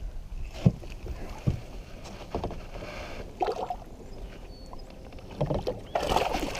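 Water splashing around a kayak, with a few knocks, as a hooked largemouth bass is fought up close beside it; the loudest splashing comes near the end.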